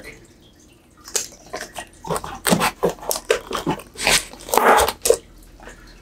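Crinkling plastic bag and light clicks and knocks as a PC power supply in its plastic wrap is handled and set back into its box. It is quiet for about the first second, and the rustling is heaviest about two and a half seconds in and again near the end.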